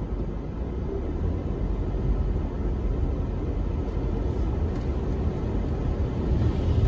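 Steady low rumble of a moving car's engine and tyres heard from inside the cabin, growing a little louder near the end.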